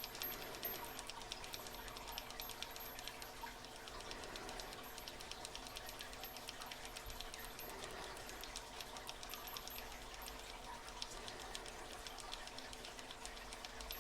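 Faint, rapid clicking of a SouthOrd tubular lock pick being turned and worked in an American tubular lock.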